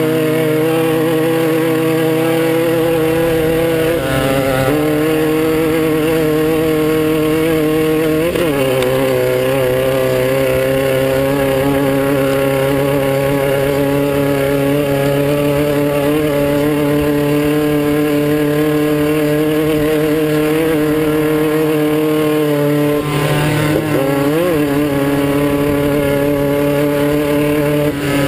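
Class 9 off-road race buggy's engine running hard at a steady, high speed. The revs dip briefly and climb back about four seconds in, again about eight seconds in, and twice between about 23 and 25 seconds.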